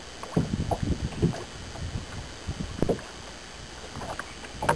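Small waves lapping and slapping against the hull of a small boat, a few irregular splashes over a steady low rumble of wind.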